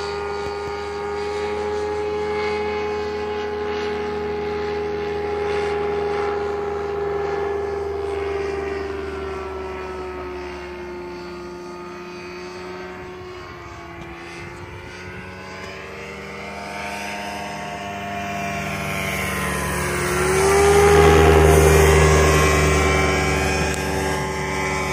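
Propeller airplane engine droning steadily as the plane circles, growing fainter midway and then swelling into a loud low pass about twenty seconds in, the pitch bending as it goes by.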